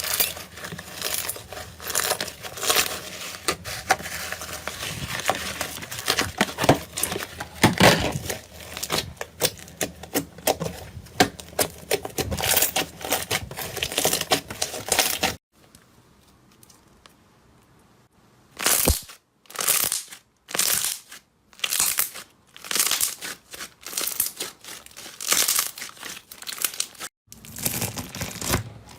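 Slime being squeezed, poked and stretched by hand, crackling and popping in a dense run for about fifteen seconds. Then comes a pause of about three seconds, followed by a string of separate crackly squishes.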